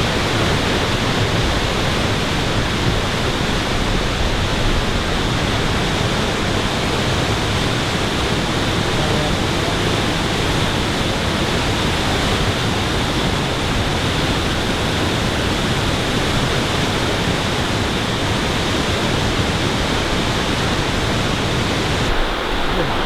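Steady, unbroken rush of falling water, as from a waterfall, cutting off abruptly near the end.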